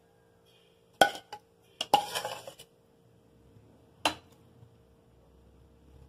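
Metal spoon clinking and scraping against a tall glass goblet and dishware as ceviche is spooned in: a sharp clink about a second in, a short run of clinks and scraping around two seconds in, and another clink about four seconds in.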